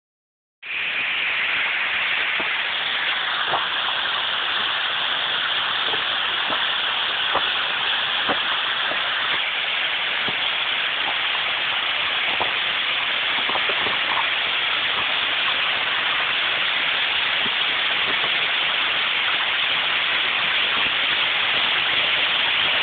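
Small waterfall splashing down layered rock ledges: a steady rushing hiss of falling water that cuts in abruptly about half a second in.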